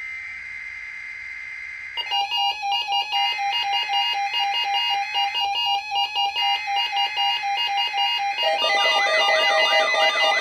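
A steady high electronic tone for about two seconds, then synthesized electronic music with a quick, regular beat, which grows fuller with a wavering melody near the end.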